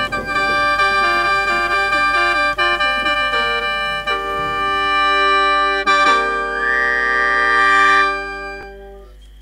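Instrumental ending of an Isan mor lam song: a melody steps over long held chords, then a final chord is held and fades out about eight seconds in.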